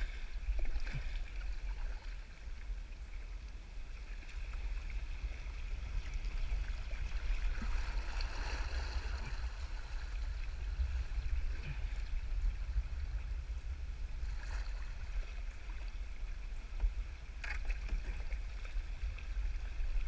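Shallow river water rippling and gurgling over rocks around a kayak's hull, a steady hiss, with a constant low rumble underneath.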